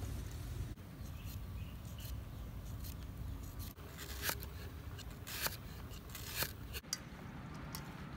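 A cleaver chopping vegetables on a wooden cutting board: three sharp knocks about a second apart in the middle, with quieter clicks and handling sounds of food preparation around them.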